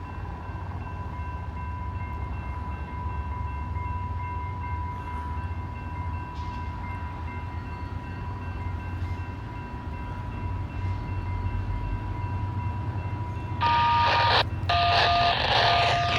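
FrontRunner commuter train: a low diesel rumble under a steady high-pitched tone. About 13.5 seconds in the tone stops and the locomotive's multi-chime horn blows loudly, breaks off briefly, then sounds again with a shifting chord.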